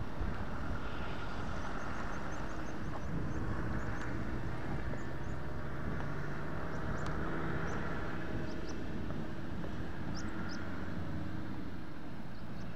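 Military Land Rover Defender diesel engines running steadily as the vehicles drive off along a gravel track, a low engine drone with tyre noise.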